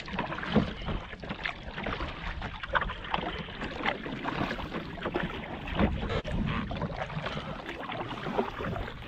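Kayak paddling: a double-bladed paddle dipping into and pulling through lake water in irregular strokes, with splashes and drips, and water washing along the hull.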